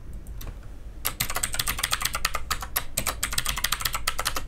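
Computer keyboard typing: a few single key clicks, then from about a second in a fast run of keystrokes as a password is typed into the field and again into the confirm field.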